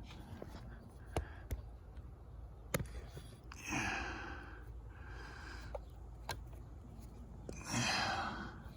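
Quiet handling of small pump parts, with a few faint light clicks, and two breaths, one about four seconds in and one near the end.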